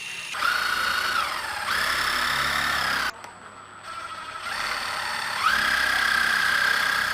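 Small electric power-tool motor whining in two runs. In the first run its pitch sags and recovers as it bogs under load, then it cuts off sharply. The second run starts low, climbs back up to speed and holds steady.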